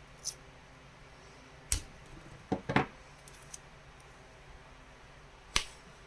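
Scattered short clicks and taps from hands working on a desk, sticking small torn pieces of electrical tape onto the corners of a sheet of paper. There is a quick cluster of three taps in the middle, and single sharper clicks just before two seconds in and near the end.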